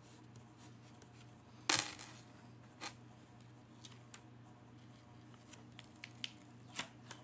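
Scattered light clicks and taps of diamond-painting work, small hard drills and tools knocking on the canvas and tray: one sharper click with a brief ring about a second and a half in, another about a second later, then a few faint ticks, over a low steady hum.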